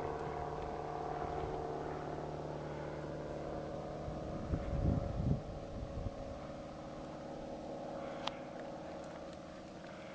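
Small propeller airplane passing overhead, its engine a steady drone that slowly fades as it moves away. Brief wind buffeting on the microphone about halfway through.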